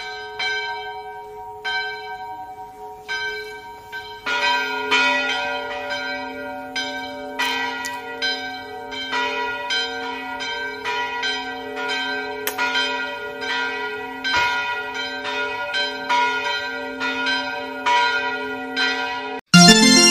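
Bells chiming a slow melody over held ringing tones. A few strikes come at first; about four seconds in a deeper steady tone joins and the strikes come faster. The sound cuts off suddenly near the end, like an edited-in music track.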